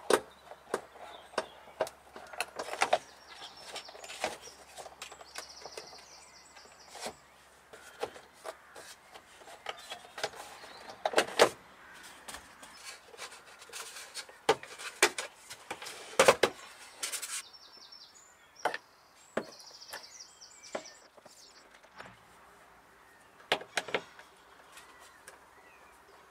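Plastic door trim of a Peugeot 106 being dismantled: a scattered series of sharp clicks and knocks as Torx screws are turned out with a screwdriver and a plastic section of the door card is pulled off. Birds chirp a few times in the background.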